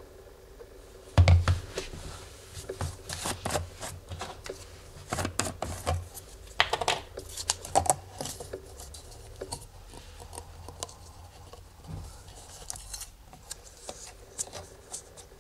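Plastic motor-oil bottle handled and its screw cap twisted off: a loud thump about a second in, then a run of clicks and scrapes from the plastic. Fainter clicks and rustles near the end as a syringe is put into the open neck.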